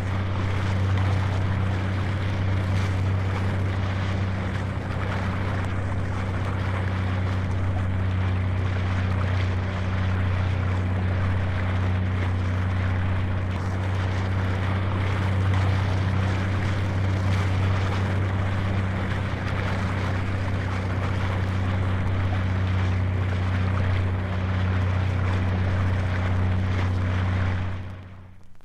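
A steady engine drone with a strong low hum that holds one pitch throughout, dying away near the end.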